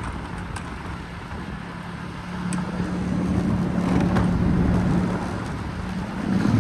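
Motor scooter on the move, heard from the seat: its engine runs steadily under road and wind noise on the phone microphone. The engine hum grows louder from about two seconds in.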